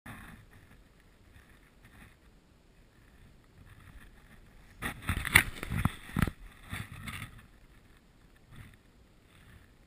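Irregular knocks and rustling close to the microphone for about two and a half seconds in the middle, over a faint outdoor background: handling noise from the angler working the fly rod and line while playing a hooked trout.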